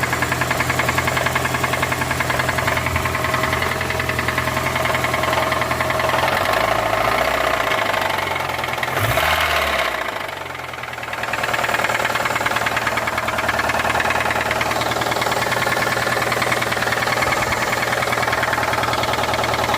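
Car engine idling with a steady rapid knock, the knock that comes in once the engine has warmed up a little. About seven seconds in it is revved briefly, rising and falling in pitch, then settles back to idle with the knock continuing.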